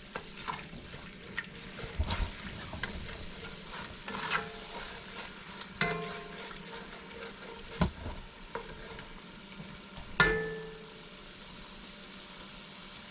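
Sofrito sizzling as it is sautéed in a pan and stirred with a spoon, which knocks against the pan every second or two. The loudest knock comes about ten seconds in and rings briefly; after it only the steady sizzle goes on.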